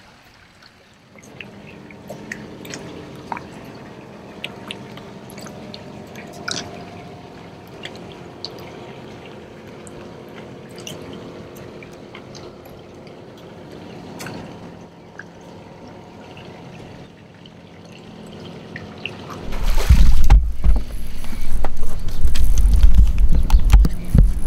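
Electric jon boat motor running with a steady hum, with scattered small clicks and drips. About twenty seconds in, a loud low rumbling buffeting takes over.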